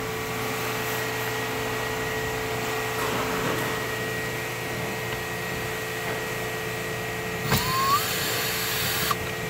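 A cordless drill-driver with a Torx T25 bit spins up for about a second and a half near the end, its motor whine rising, as it backs out a screw holding a plastic interior trim panel. Underneath, a steady fan-like hum.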